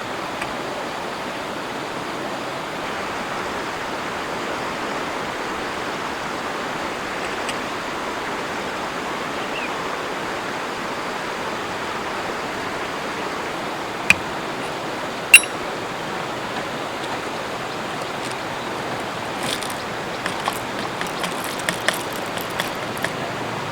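River water rushing steadily. Two sharp clicks stand out about fourteen and fifteen seconds in, and a run of small clicks and crackles comes near the end.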